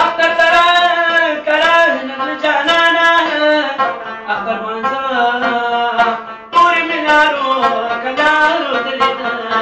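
A man singing to his own Afghan rabab, the plucked strings running under his voice. The voice breaks off briefly about six and a half seconds in, then carries on.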